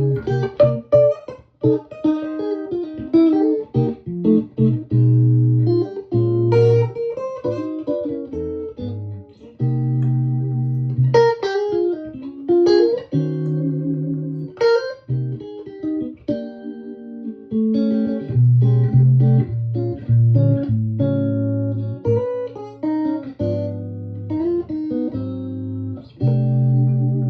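Electric guitar played through a Victoria 35310 tube combo amp, a tweed Bandmaster-style amp with three Jensen P10R speakers. The playing mixes strummed chords and quick single-note runs with repeated held low notes.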